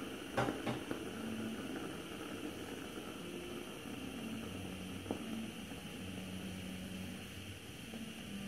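Gas burner hissing steadily under a stainless-steel cezve of Turkish coffee as it heats toward foaming. A few short clicks come near the start and once more about five seconds in.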